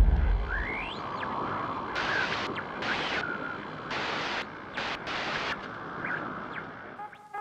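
Sound effect for an animated GoPro logo intro: the tail of a deep boom fading over the first second, then a steady rushing noise cut by several short bursts of glitchy static and a few thin rising whistles.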